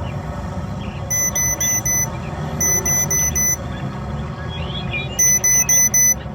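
Electronic beeping like a digital alarm clock, in quick groups of four beeps, four groups in all, over a steady low rumble.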